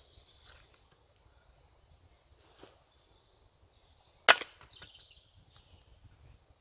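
One sharp knock of wood on wood about four seconds in, a log being handled on a log chopping block, with a few fainter knocks and rustles in dry leaf litter around it.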